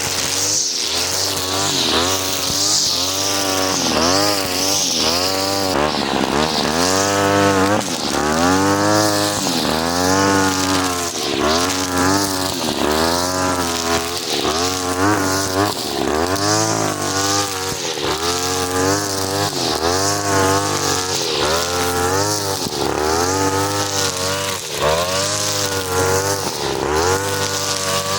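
43cc two-stroke brush cutter engine spinning a four-string nylon line head, its revs rising and falling over and over, about once a second.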